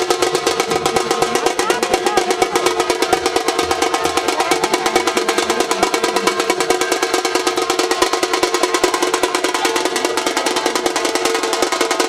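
Festive drum music: a rapid, even drumbeat with sustained melodic tones over it.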